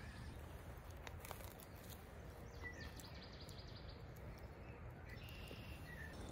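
Quiet outdoor ambience: a low steady hiss with a few faint, short bird chirps and occasional soft clicks.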